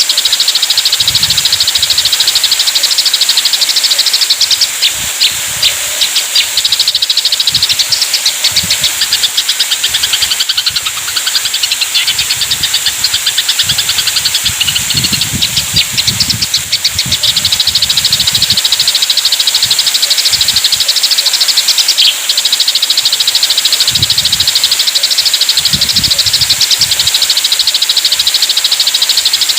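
Eurasian tree sparrows in a fighting exchange, chattering rapidly and without a break in a dense run of short high chirps. Low rumbles come and go beneath them.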